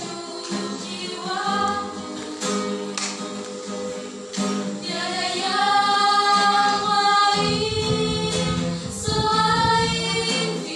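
Group singing: voices hold long notes together in a choir-like sound, with pitches that glide and swell, loudest around the middle and again near the end.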